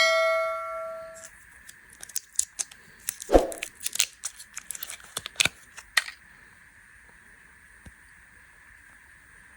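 Candy packaging being handled and opened: a run of sharp crinkles, clicks and tearing rasps, with one heavier thump partway through. It opens on a single ringing tone that dies away over about a second.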